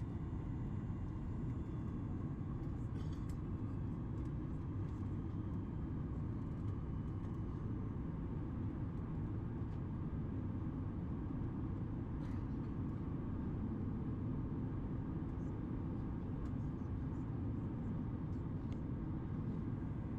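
Steady cabin noise of a Boeing 737 MAX 8 on approach: an even, low rush of its CFM LEAP-1B engines and airflow heard from inside the passenger cabin, with a few faint ticks.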